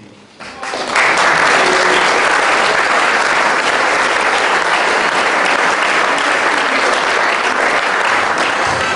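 Audience applauding: dense, steady clapping from a seated crowd, which starts faintly about half a second in and is at full strength within a second.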